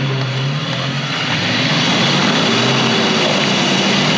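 Truck engine running hard under load, a loud steady drone that holds its pitch, as the vehicle pulls to drag another up a slippery ledge.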